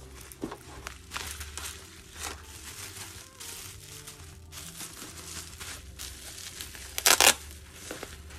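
Plastic bubble wrap crinkling and rustling as hands handle it and pull it open, with one louder, brief crackle near the end.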